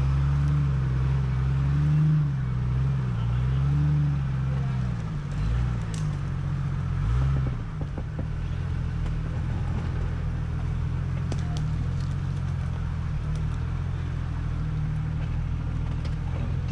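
Off-road Jeep engine revving up and down about four times under load, then settling into a steady lower run, with a few light clicks and rattles.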